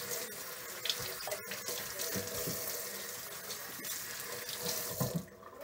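Kitchen faucet running into the sink, shut off abruptly near the end.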